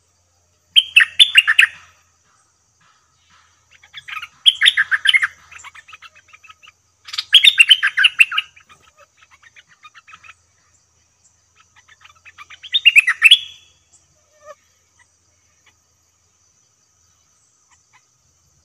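Bulbul song: four loud, quick bubbling phrases a few seconds apart, with softer chattering notes between them.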